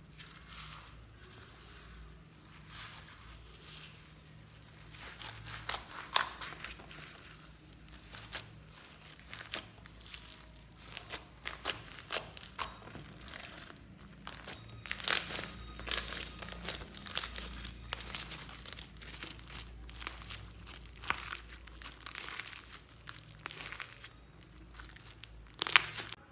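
White slime being squeezed and stretched by hand with pink foam beads worked into it: irregular crackling and popping clicks, sparse at first and getting busier from about five seconds in.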